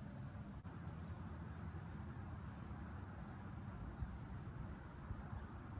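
Insects chirping faintly in a steady high pulsing over a low, steady rumble.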